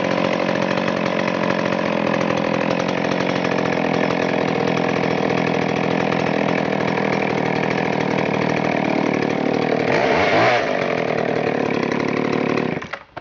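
Two-stroke chainsaw engine running steadily. Its pitch swings briefly and it gets a little louder about ten seconds in, then it cuts off suddenly near the end.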